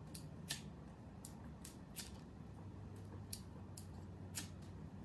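Faint, irregular sharp crackles from a wood fire in an open fireplace, about ten in a few seconds, over a low steady hum.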